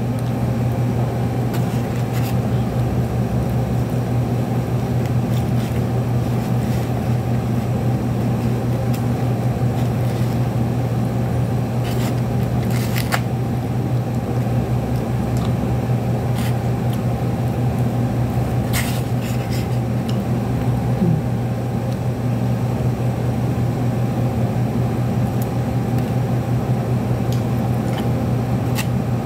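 Steady, unchanging machine hum, like an electric fan or appliance motor running, with a few faint light clicks of plastic cutlery against a plate.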